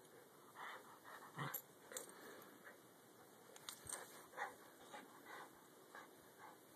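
Small white terrier panting faintly in short, irregular puffs while mouthing a plush toy, with a few light clicks and rustles.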